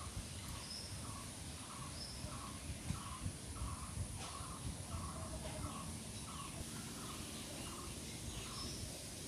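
A bird calling over and over in the background, a short note about twice a second, over low room noise.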